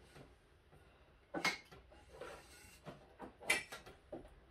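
Handling noise from a black desk leg being picked up and turned over: two short clicks, about a second and a half in and again near the end, with a few faint taps between.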